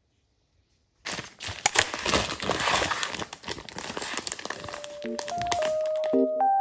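Crinkling and rustling of packaging being handled, with many small clicks. It starts suddenly after a second of silence. A simple melody of clear, single notes comes in after about four and a half seconds and grows louder.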